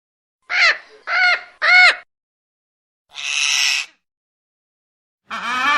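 Parrot squawking: three short calls in quick succession, then a longer, noisier screech about three seconds in, and another call beginning near the end.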